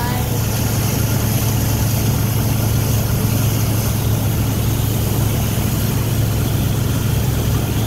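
Motorboat engine running steadily at speed, a constant low drone, under an even rush of wind and churning wake water.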